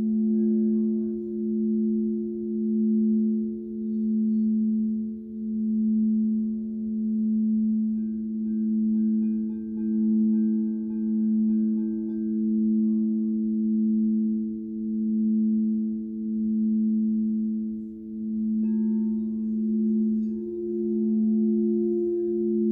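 Frosted crystal singing bowls ringing in sustained, overlapping tones, one played with a mallet around its rim. The sound swells and fades in a slow, even pulse, and the tones shift about eight seconds in and again a few seconds before the end.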